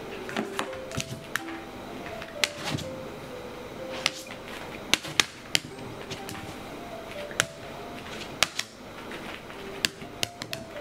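Irregular sharp taps and clicks, about a dozen, as a small dog paws at an upside-down hard plastic tub and its claws tap a hard floor, over soft background music with a slow stepping melody.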